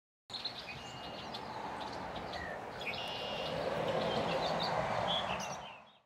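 Outdoor ambience of wild songbirds chirping and calling in short high notes over a steady background rush. It fades in just after the start and fades out near the end.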